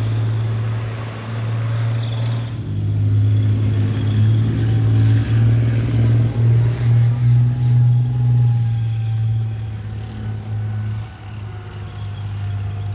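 Deep, steady drone of a Challenger-series tank's V12 diesel engine as it drives: first the Titan armoured bridge layer, then a Challenger 2 main battle tank. The level swells in a run of pulses around the middle.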